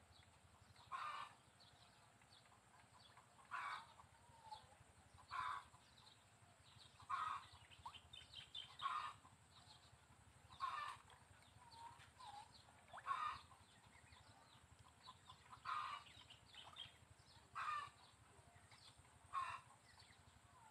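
A bird calling in short, repeated calls at a regular pace, roughly one every two seconds.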